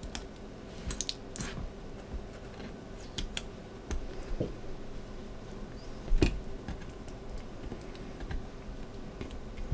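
Adhesive tape being handled and pressed down with fingers onto a circuit board: scattered small clicks and crinkles at an irregular pace, the loudest a little after six seconds in.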